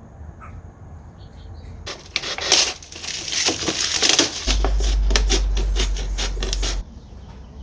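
Close-up crackling and rustling of something being handled, a dense run of small clicks starting about two seconds in, with a deep rumble joining midway; it all stops abruptly about a second before the end.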